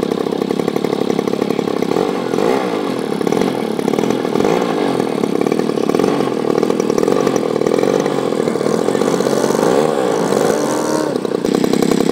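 RCGF 26cc single-cylinder two-stroke petrol engine of a large model airplane, running on the ground with its propeller spinning. Its pitch rises and falls several times as the throttle is worked.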